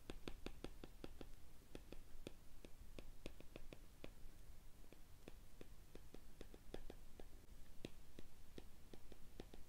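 Faint, quick taps and clicks of a stylus writing on a tablet, several a second and unevenly spaced, as a line of text is handwritten.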